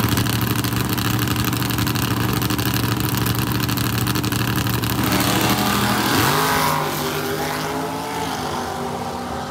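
A drag-racing car's engine held at steady high revs on the starting line. About six seconds in it launches, the pitch rising sharply, and the note then fades as the car pulls away down the track.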